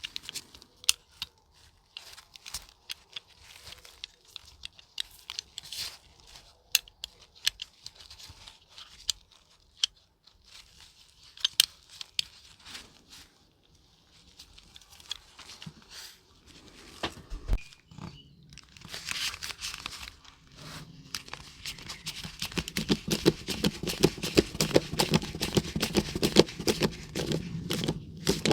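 Hand work on a small diecast model car: scattered light clicks and taps, then from about two-thirds of the way through, a louder quick run of scraping or rubbing strokes that keeps going.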